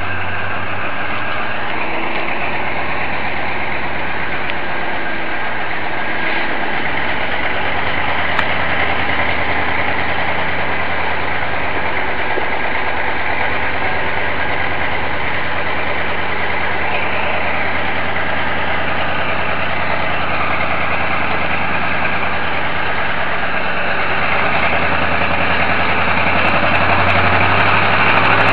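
Mobile crane's engine running steadily as it hoists a heavy marine engine, its pitch shifting now and then and growing louder near the end as the load is lifted higher.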